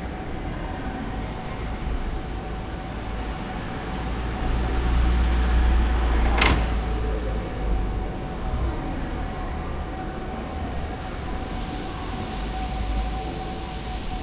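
City street ambience: a low vehicle rumble that swells in the middle and then eases, under one steady high hum. A single sharp click comes about six and a half seconds in.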